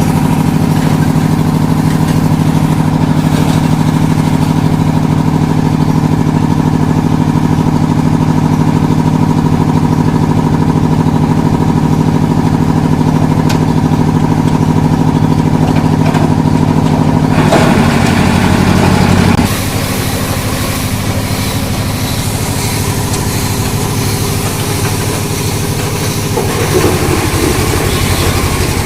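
An engine running steadily at a constant speed. About eighteen seconds in, a rougher, grinding noise joins briefly; after that the running goes on a little quieter.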